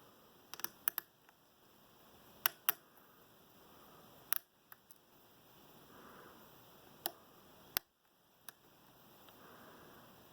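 Lock-picking clicks from an American 1165 padlock's 6-pin core: the pick and tension wrench working the pins, about ten sharp metallic clicks at irregular intervals.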